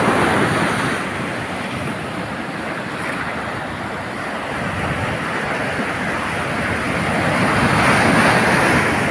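Ocean surf: small waves breaking and washing up the sand in a steady rush. It swells as a wave breaks at the start and again, loudest, near the end.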